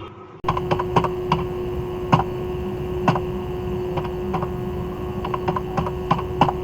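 A desktop computer running with a steady hum and a single held tone, while irregular clicks, like a mouse and keyboard being used, fall over it. The hum begins abruptly about half a second in.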